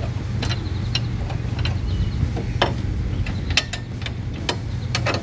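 Irregular metal clicks and taps as a hand tool, bolts and a steel tailgate bracket are worked on, a few clicks a second, over a steady low hum.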